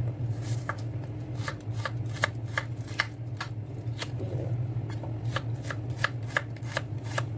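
Kitchen knife slicing a red onion on a wooden cutting board: a regular series of short taps of the blade on the board, about two to three a second.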